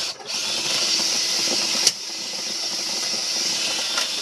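Dryer vent cleaning equipment running, a steady rushing hiss of air with a faint machine hum underneath and a single click about two seconds in.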